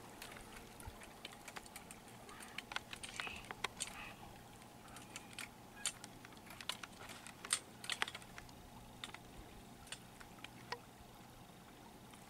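Irregular sharp clicks and ticks, a few each second, over a faint steady low hum.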